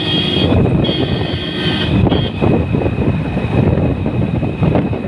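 Car driving along an open road, heard from inside: continuous road rumble and wind buffeting on the microphone, with a thin steady high tone running through it.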